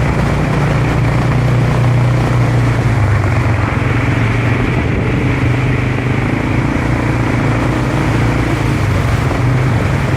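A vehicle engine running steadily, a constant low hum under a wash of road or wind noise.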